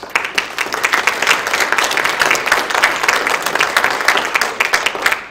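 Audience applause: many hands clapping in a dense, steady patter, breaking out all at once.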